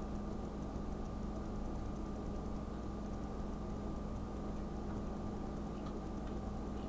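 Quiet steady room tone: a constant electrical hum over a faint even hiss, with a few faint small clicks in the last couple of seconds.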